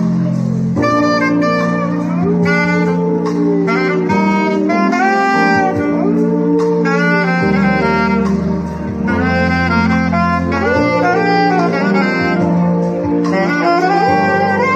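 Saxophone playing a jazzy melody while a dog howls along, its long arching howls rising and falling several times over the notes.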